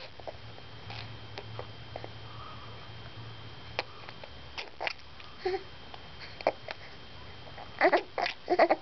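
Five-month-old baby making short wet mouth noises, spitting and smacking sounds, scattered singly with a louder quick run of them near the end.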